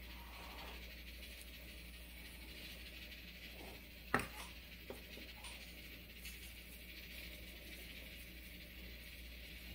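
Quiet kitchen background with one sharp clink of kitchenware set down on a wooden cutting board about four seconds in, followed by two softer knocks.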